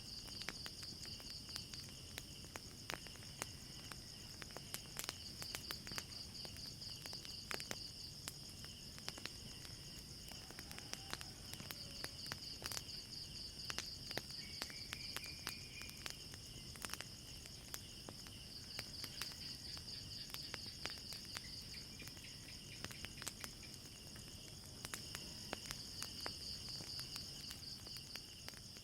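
Crickets chirping in a steady, pulsing night chorus, with scattered sharp pops and crackles from a wood fire.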